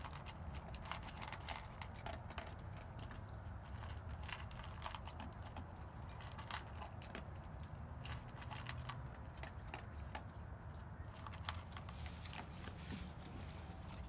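A dog eating dry kibble from a bowl, with many irregular small crunches and clicks.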